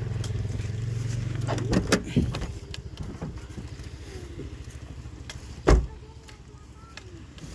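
A motor vehicle engine running with a steady low drone, which fades out about two seconds in. Scattered clicks and knocks follow, the loudest a heavy thump a little before six seconds.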